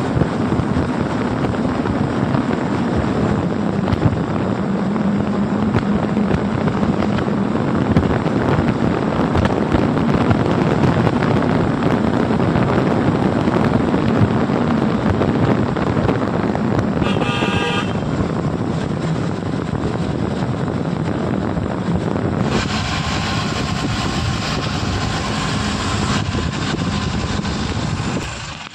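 A jeep driving on a hill road, heard from an open side window: steady engine and road noise with wind on the microphone. A vehicle horn sounds once, briefly, about seventeen seconds in, and about twenty-two seconds in the low rumble drops away and a brighter hiss takes over.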